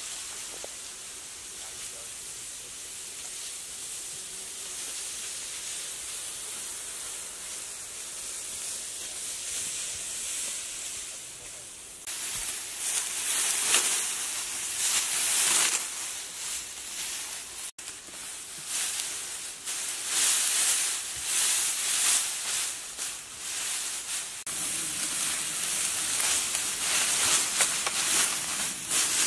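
A steady high hiss of outdoor background, then, about twelve seconds in, irregular rustling and crunching of dry cut grass being handled and laid down in bundles.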